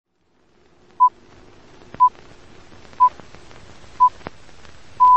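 Film-leader countdown sound effect: a short, high, steady beep once a second, four times, then a longer beep of the same pitch starting near the end. Underneath are a faint hiss and a few sharp clicks.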